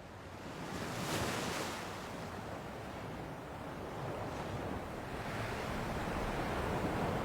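Rushing of water and waves with wind, swelling and easing with no clear strokes. It fades in after a cut in the audio.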